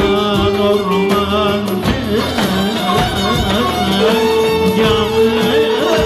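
Turkish dağlı folk music played live: a male singer over an ensemble of violins, bağlama and cümbüş, kanun and davul, with notes held long underneath the wavering melody.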